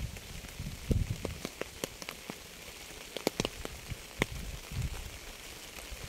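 Rain falling with a steady hiss, individual drops landing as sharp, irregular ticks on a hard surface. A few short low thumps come through, about a second in and again near five seconds.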